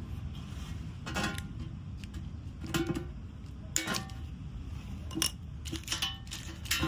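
Metal hardware and tools clinking: about five separate sharp metallic hits with short ringing, from bolts, washers and the steel filler plate being handled, over a steady low rumble.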